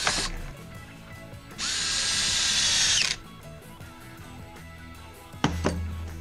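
Cordless drill-driver running for about a second and a half, steady once it spins up, driving in the bolt of the chainsaw's rear anti-vibration mount. A knock comes at the start, and a clunk near the end as the drill is set down on the bench.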